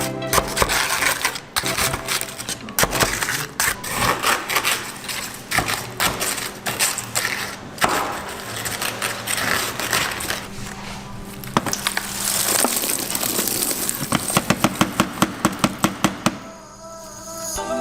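Food-preparation clatter: repeated sharp clicks, knocks and cracking, with a quick run of about a dozen even taps near the end, over faint background music.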